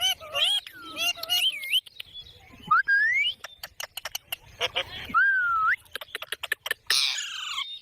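Green parrot vocalizing: short speech-like chattering calls, rising whistles, runs of rapid clicks, and a harsh squawk near the end.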